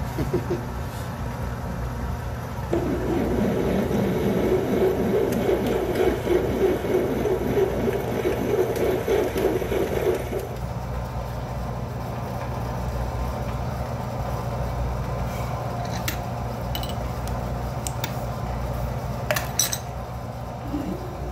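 Atlas metal lathe running, with a large twist drill being fed into a piece of 2-inch hex stock in the 3-jaw chuck. From about 3 s to 10 s there is a louder rough cutting noise as the drill bites, after which the lathe runs on more quietly with a few sharp clicks near the end.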